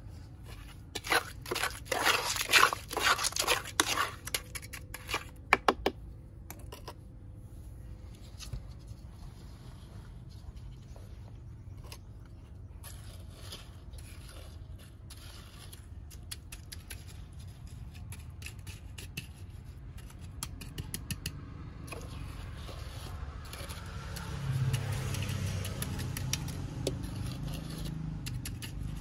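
Metal trowel scraping and clinking against a metal bucket as wet cement mix is scooped and pushed into silicone pot molds. There is a quick run of sharp scrapes in the first few seconds, and near the end a heavier, rough sliding of the wet mix as the bucket is tipped into a mold.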